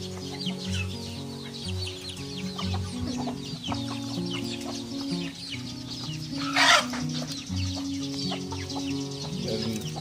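A flock of chickens clucking, with many short high bird chirps, over background music of slow held notes. A loud, short harsh burst stands out about two-thirds of the way through.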